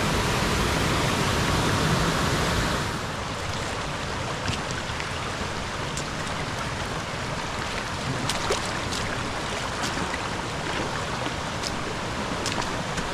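River water rushing steadily over rocks, louder for the first three seconds and then dropping to a lower, even level. Scattered light clicks sound over it from about four seconds in.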